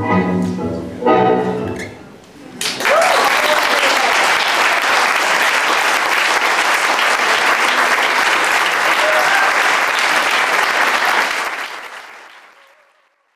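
Tango music ending on its last notes, then an audience breaking into applause about two and a half seconds in; the clapping holds steady and fades away near the end.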